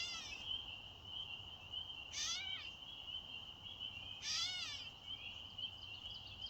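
Gray catbird giving its cat-like mew call three times, about two seconds apart, each a short slurred note that rises and falls. A steady high trill runs underneath.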